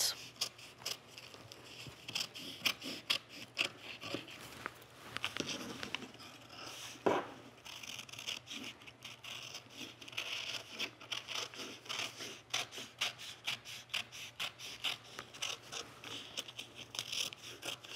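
Scissors cutting through a brown paper pattern and the cotton pillowcase fabric beneath it: a long run of short snips with brief pauses.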